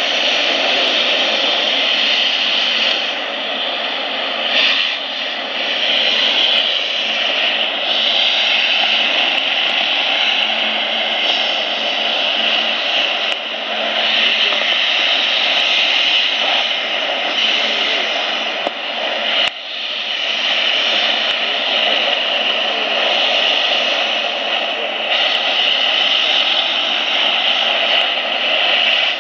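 SPRAYtec UMAP 60 mist cannon running, its fan blowing a jet of water mist: a loud, steady rushing drone that holds the same pitch throughout. A single sharp click about two-thirds of the way through.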